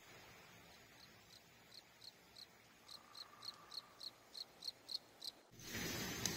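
A cricket chirping: short, high chirps, about three a second, growing louder. About five and a half seconds in, this cuts abruptly to a louder steady hiss with a sharp click.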